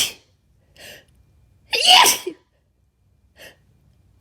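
Forceful sneezes in an induced sneezing fit: the end of one sneeze at the start and a full sneeze about two seconds in, with a short sharp breath between them and another near the end.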